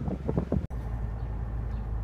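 Gusts of wind buffeting the microphone, cut off abruptly under a second in by the steady low rumble of a car driving, heard from inside the cabin.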